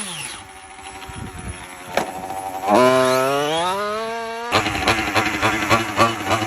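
Nitro-fuelled RC truck's small glow engine, running low at first, then revving up in a long rising whine for about two seconds. The revs drop off abruptly, and the engine runs on with a rapid, choppy crackle near the end.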